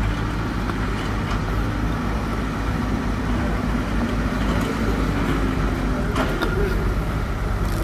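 Hidromek 102S backhoe loader's diesel engine running as the machine moves up with a pallet of paving stones, its note rising and falling a little with the throttle. A few sharp clacks of paving stones being set sound near the end.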